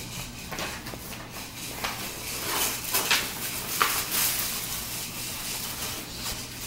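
Clear plastic bag crinkling and rustling in the hands in irregular scratchy bursts, loudest in the middle, over a low steady hum.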